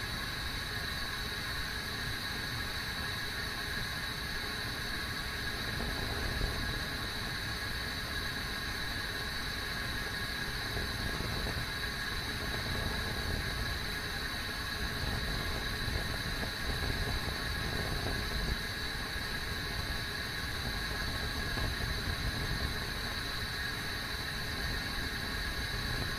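Kettle heating toward the boil: a steady rumbling hiss with small surges, and a faint high steady whine above it.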